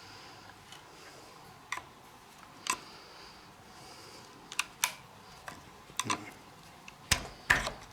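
Sparse clicks and light knocks of hand tools working at a motorcycle handlebar grip, with a few heavier knocks near the end.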